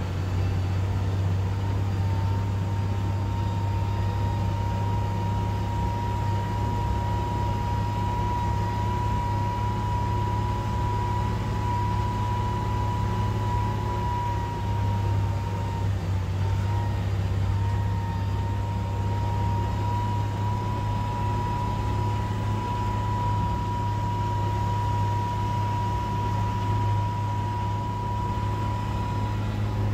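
MB-trac 1300 tractor's six-cylinder diesel engine running steadily under way, heard from inside the cab as a strong low hum. A steady high whine runs over it and dips briefly about halfway through.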